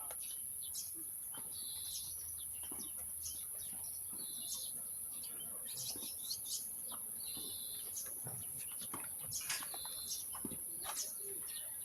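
Small birds chirping: short calls repeated every couple of seconds, over a steady high hiss with scattered faint clicks and knocks.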